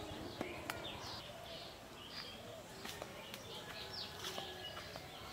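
Small birds chirping, with many short, quick sweeping calls overlapping throughout. A few sharp clicks sound near the start and about three seconds in.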